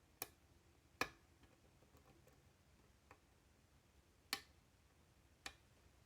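Scattered small, sharp metallic clicks, four clear ones spaced a second or more apart, from a lock pick working the pins of a five-pin pin-tumbler challenge lock under tension.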